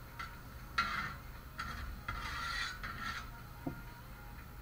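A metal spatula scraping and pushing food across a Blackstone griddle's flat-top cooking surface, in a string of short, irregular rasping strokes.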